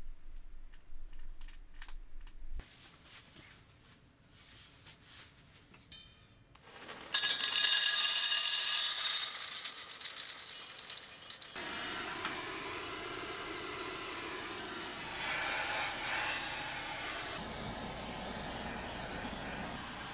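Wood pellets poured into a small tent pellet stove's steel funnel hopper: a sudden loud rushing rattle about 7 seconds in, lasting a couple of seconds and tailing off. This is followed by the steady hiss of a butane torch lighting the stove. A few light clicks are heard at first.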